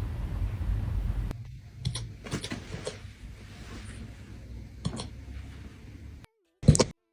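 Puppy hiccupping: a few short, separate hiccups a second or more apart, then a louder, sharp one near the end.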